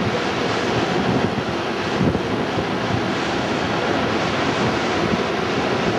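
Hurricane-force wind and rain rushing steadily, with gusts buffeting the microphone, along with the noise of a vehicle driving on a wet road.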